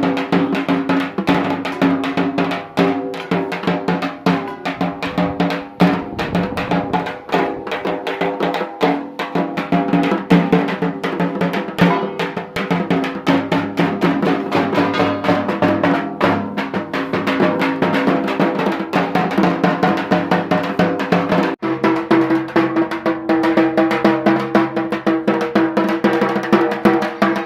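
Dhak, the Bengali barrel drum, beaten fast and continuously with sticks, over steady held ringing tones. About two-thirds of the way through there is a brief break, and the tones change.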